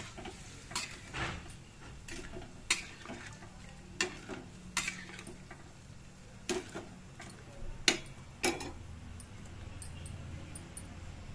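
Metal spatula knocking and scraping against a steel kadai while stirring a simmering curry: irregular sharp clinks about once a second, the loudest near eight seconds in.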